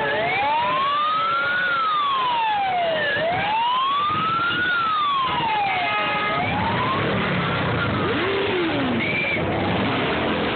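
Fire engine siren on a slow wail, its pitch rising and falling about every three seconds, loud at first and fading after about six seconds. Motorcycle engines rumble louder as the siren fades.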